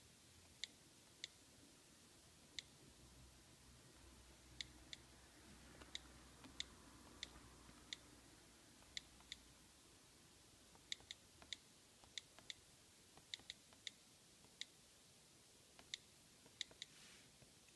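iPad on-screen keyboard key-click sounds as a password is typed: about thirty short, crisp clicks at an uneven typing pace, sometimes in quick runs of two or three.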